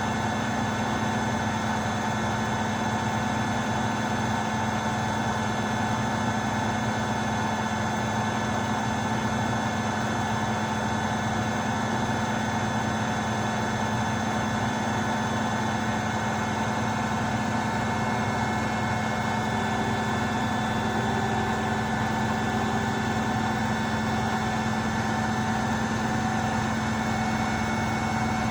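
Beko washing machine on its spin cycle, the drum turning at a steady speed: a constant hum with several steady whining tones over it.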